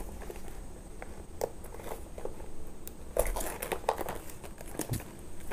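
Clear plastic wrapping being peeled and crinkled off a small cardboard earbuds box, in scattered crackles that get busier about three seconds in.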